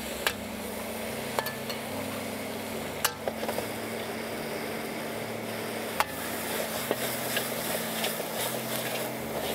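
Food sizzling in a wok as it is stir-fried, with a metal spatula clanking sharply against the wok a few times, over a steady hum.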